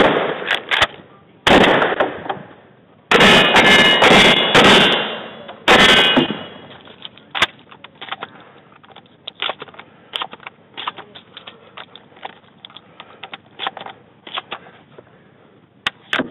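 Shotgun fired several times in quick succession over the first six seconds, each blast loud with a long tail. Then a run of small metallic clicks as shells are thumbed one by one into the magazine, and another sharp report near the end.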